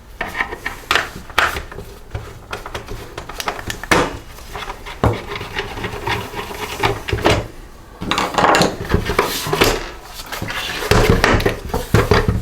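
Irregular clicks, knocks and scraping of plastic housing parts and hand tools being handled as a Toro 60V handheld blower is taken apart, busiest in the second half.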